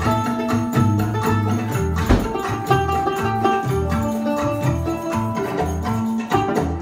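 Live acoustic band playing a Middle Eastern dance tune: violin melody over mandolin, bass and a dumbek beating a steady rhythm.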